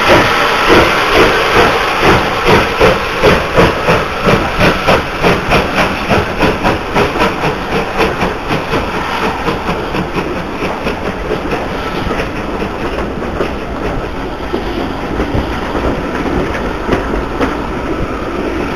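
Steam locomotive pulling away with a train: its exhaust chuffs come regularly at first, then quicken and fade as it draws off. They give way to the steady rumble and clatter of the coaches rolling past.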